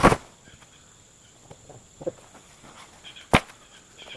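Two sharp knocks. The first and loudest comes right at the start, and the second about three seconds later, with a light tap between them about two seconds in.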